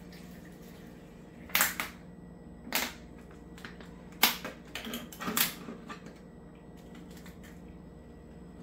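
Thin plastic water bottle crackling as it is squeezed and handled: a handful of sharp crinkles spread over the first six seconds, loudest about a second and a half in and again around the middle.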